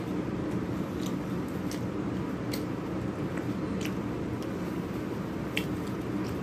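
Eating sounds from a man tearing and chewing khubz flatbread dipped in chicken curry. About half a dozen soft, wet mouth clicks and squishes stand out over a steady low background hum.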